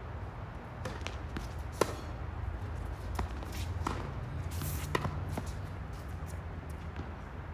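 Tennis rally on an outdoor hard court: a handful of sharp pops from rackets striking the ball and the ball bouncing, the loudest about two seconds in, with players' footsteps and shoe scuffs on the court over a steady low hum.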